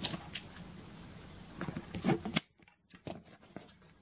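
Scissors snipping a short white plastic tube: a few small crisp clicks, the sharpest about two seconds in, then light handling clicks.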